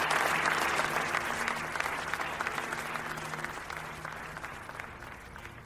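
Audience applauding, the clapping gradually dying away, over a faint sustained low musical tone.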